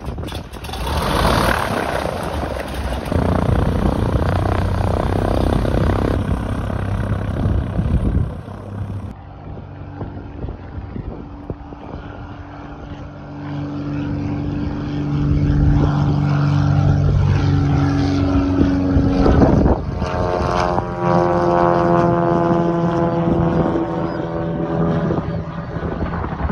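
Cessna 182 single-engine airplane taking off and climbing away, its six-cylinder piston engine and propeller droning steadily at full power. About two-thirds of the way through, the pitch shifts as the plane passes overhead. Wind buffets the microphone, mostly in the first few seconds.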